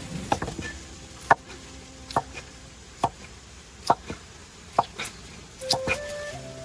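Knife chopping on a cutting board, single sharp strokes evenly spaced a little under a second apart. Soft flute music comes in near the end.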